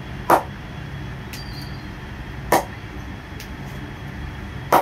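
Red leather cricket ball striking the face of an SF Transformation 4.0 English willow cricket bat, three sharp knocks about two seconds apart: the 'ping' test of how the willow sounds and rebounds.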